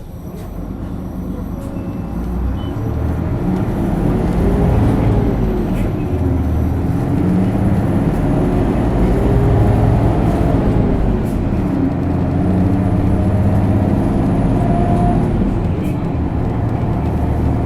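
Isuzu Erga city bus (PKG-LV234L2) with a six-speed manual gearbox, heard from on board: its 6HK1 six-cylinder diesel running hard under full acceleration. The engine note climbs and drops back several times as the gears are changed up, and grows louder over the first few seconds.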